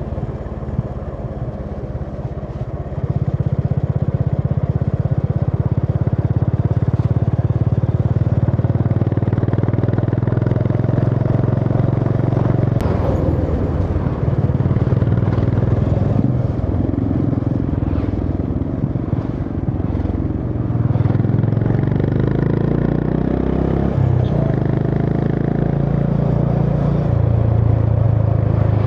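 Honda CB350 H'ness single-cylinder engine running under way, its exhaust note rising and falling with the throttle; it gets louder about three seconds in.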